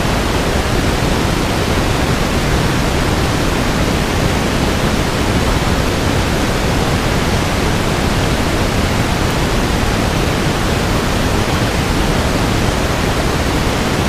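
Steady, even rushing noise like a loud hiss, unchanging throughout, with no distinct knocks, clicks or tones.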